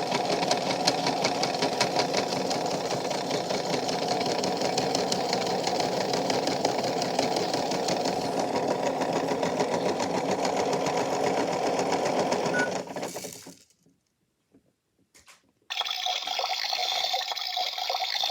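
Small battery motor of a toy washing machine whirring steadily in its spin cycle, with a fast even ticking, winding down and stopping about thirteen seconds in. After a short silence a steady hissing, water-like sound starts suddenly.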